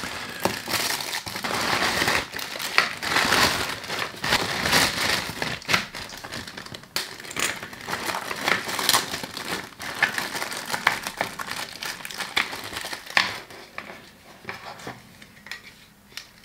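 Plastic packaging crinkling and crackling as a poly mailer bag and clear plastic bags are handled and pulled open, with many sharp crackles; it dies down in the last few seconds.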